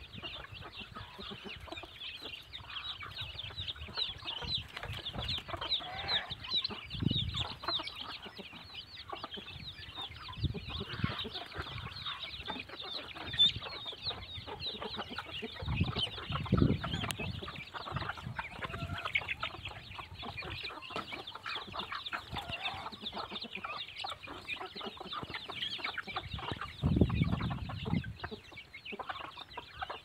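Chickens clucking over a constant dense run of high chick peeping as a mixed flock feeds, with a few low bumps.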